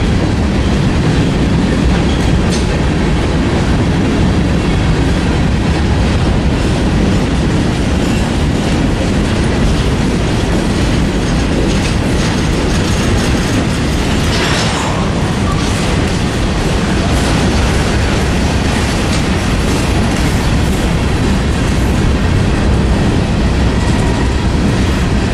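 Freight train of covered hopper cars rolling past at close range: a loud, steady rumble of steel wheels on rail with wheel clicks. About fifteen seconds in there is a brief higher-pitched burst of noise.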